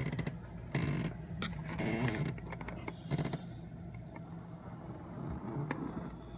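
A few short clicks and rustling noises as a newly installed RV door latch and its door are handled, over a steady low hum.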